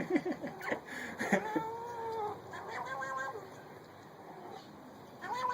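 A cat meowing: several drawn-out calls in the first three seconds or so, with a few short sharp clicks and brief yelps near the start, then quieter.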